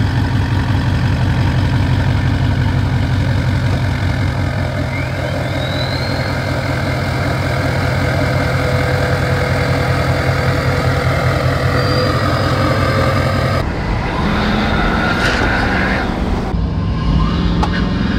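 Nissan Titan XD's 5.0-litre Cummins V8 turbodiesel idling steadily through a 4-inch exhaust with the emissions equipment removed, heard at the tailpipe as an even, low pulsing rumble. About 14 seconds in, the sound cuts abruptly to the engine heard from inside the cab.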